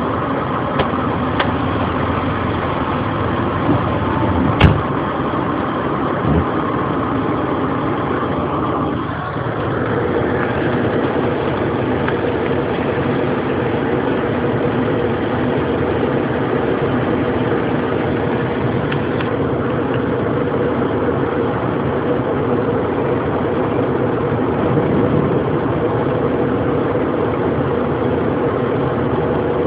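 Steady storm noise of heavy rain and hail with a few sharp hailstone hits, over a steady hum that drops in pitch about nine seconds in and then holds level.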